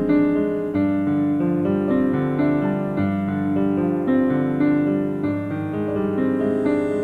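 Background music: a piano melody played over steady chords.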